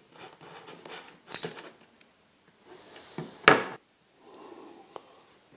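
MDF drawer parts being handled and fitted together: irregular scraping and light knocks, with a sharp knock about three and a half seconds in, the loudest sound.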